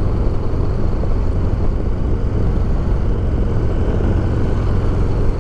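Harley-Davidson motorcycle being ridden: a loud, steady mix of engine and wind noise.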